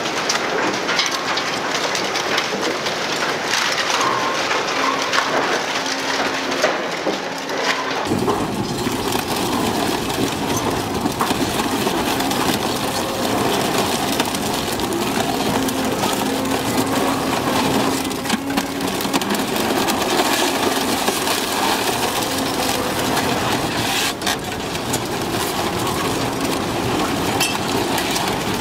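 Industrial twin-shaft shredder running steadily while its toothed cutter shafts crush and tear scrap car bodies, with sharp cracks of breaking metal and plastic. About eight seconds in, the sound changes to the deeper, fuller grinding of the stationary ARJES VZ950 shredding a car body.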